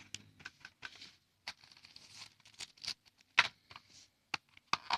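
Irregular light clicks and rustles of small phone accessories and packaging being handled and put aside, the loudest a sharp click about three and a half seconds in.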